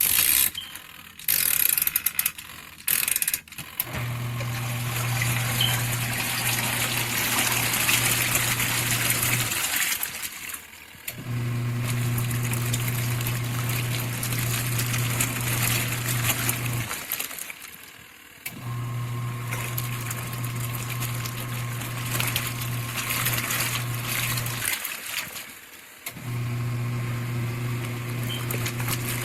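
Portable mini washing machine running its wash cycle: the motor hums and water churns in the tub. The motor starts about four seconds in after a few loud irregular knocks, and it stops briefly three times as the wash pulsator switches direction back and forth.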